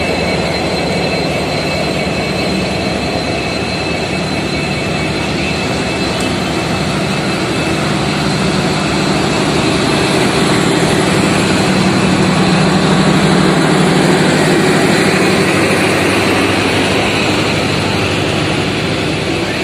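Train of LHB passenger coaches running past close by just behind a WDP4D diesel locomotive: a loud, steady rumble and rush of wheels on the rails, swelling slightly about two-thirds of the way through.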